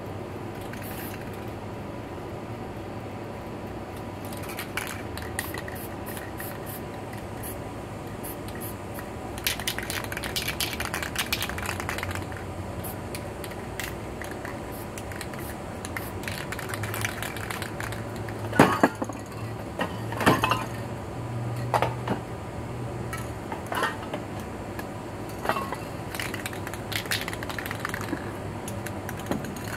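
Metal aerosol spray-paint cans clicking and clinking as they are handled, shaken and set down, with a fast run of rattling clicks about a third of the way in and several sharper knocks past the middle, along with short hisses of spraying.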